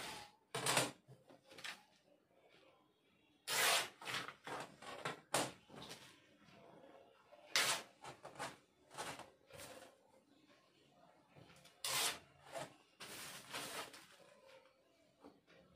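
Plastic courier mailer and paper slips rustling and crinkling in short bursts as they are handled and pressed flat while a parcel is packed.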